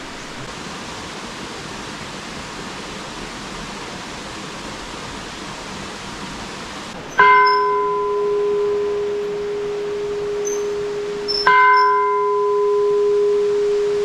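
Large hanging metal temple bell struck twice with a pole, about four and a half seconds apart, each strike ringing on in a long sustained tone with a clear low note and fainter higher overtones. Before the first strike there is only a steady hiss.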